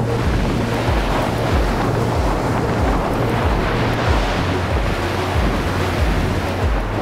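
Ocean surf breaking steadily on the beach, with wind buffeting the microphone. Under it runs background music with a low bass line that steps along every half second or so.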